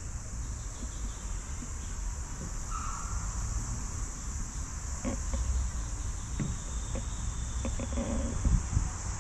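Steady high-pitched insect chorus, with a low rumble of wind on the microphone.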